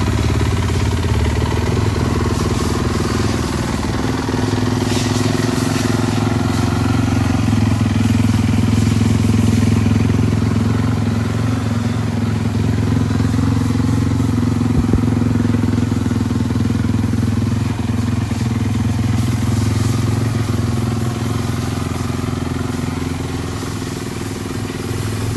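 Honda CRF450R's single-cylinder four-stroke engine idling steadily.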